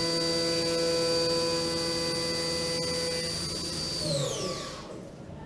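Haas MiniMill2 CNC spindle driving a half-inch three-flute end mill through a finish pass on aluminum, a steady whine. About four seconds in the spindle winds down and the whine falls away in pitch as the cut ends.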